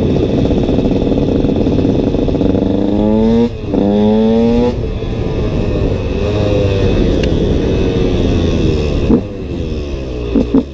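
KTM SX 125's two-stroke single-cylinder engine revving hard under load, the pitch climbing, dipping briefly at a gear change about three and a half seconds in and climbing again, then falling away as the throttle is rolled off. A few short sharp knocks near the end.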